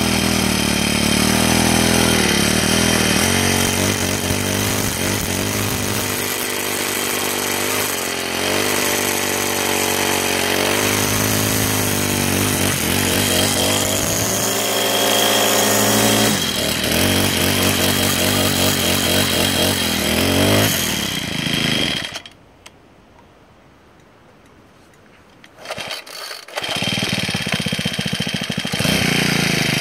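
Troy-Bilt brushcutter's small four-stroke engine running and revving up and down with the line head spinning. Near the end the sound cuts out for a few seconds, then the engine runs again.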